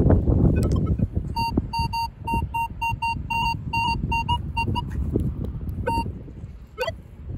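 Metal detector giving short electronic beeps at one high pitch, about four to five a second, which break off briefly about a second in and stop near the end, over a low rumble of handling.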